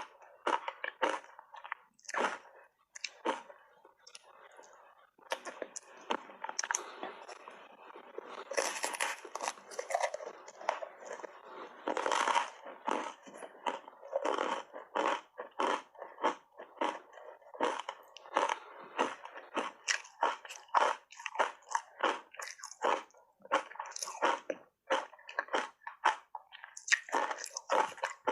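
Hard ice bars coated in matcha powder being bitten and chewed close to the microphone: an irregular run of sharp crunches, sparse at first and then coming thick and fast.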